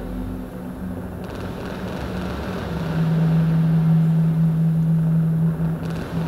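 Electronic ambient music from modular synthesizers and theremin: a thick low drone, with a steady held low tone coming in about three seconds in.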